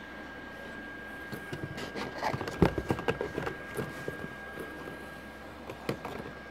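Plastic blister packs of Soccer Starz figures clicking and crinkling as they are handled in their box. A cluster of clicks and taps comes in the middle, with a few more near the end.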